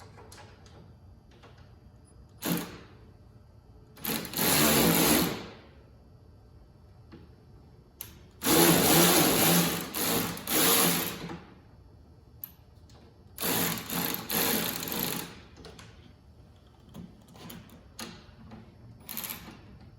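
A cordless power driver running in about five bursts, the longest about three seconds, turning the track tension adjuster bolts on a snow bike track system.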